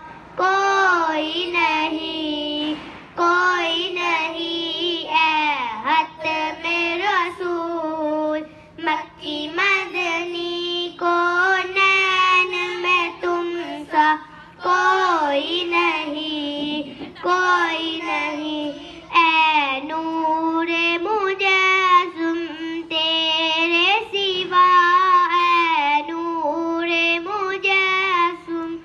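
A boy singing a naat, an Islamic devotional song in praise of the Prophet, into a microphone: one young voice in long drawn-out phrases that bend and ornament the pitch, with short pauses for breath between them.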